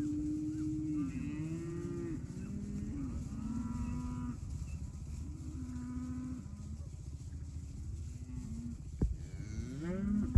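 Several Angus heifers mooing, drawn-out calls overlapping one another, over a steady low rumble. A couple of sharp knocks come near the end.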